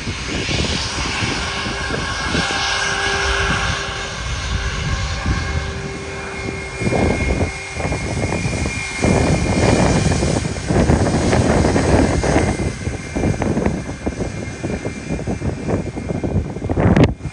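Jet airliner departing at takeoff thrust: a continuous engine roar with a faint steady whine running through it. It grows louder a little past halfway.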